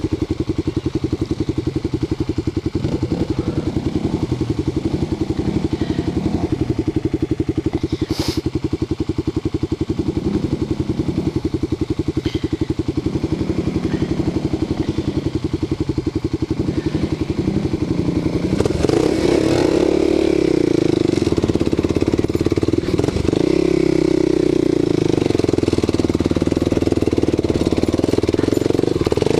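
Single-cylinder engine of a Kawasaki KLX250 dual-sport motorcycle idling steadily. About two-thirds of the way through it gets louder as the bike pulls away, the engine note rising and falling with the throttle.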